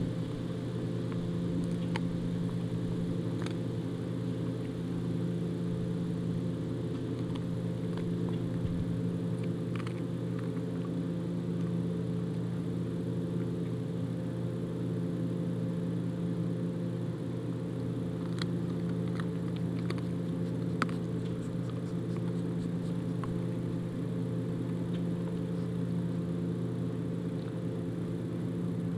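A steady low mechanical hum, with a few faint sharp clicks and crunches from a husky chewing a raw whole chicken, bones included.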